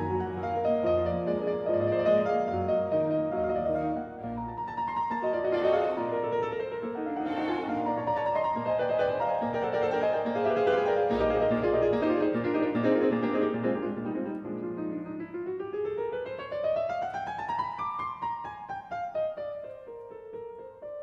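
Piano music, classical in style, with many notes sounding together. About fifteen seconds in, a quick run of notes climbs upward, then comes back down.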